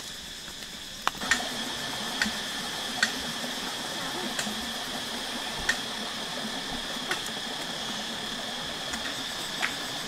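Forest ambience: a steady high insect drone over an even hiss, with scattered sharp clicks and snaps. It gets a little louder about a second in.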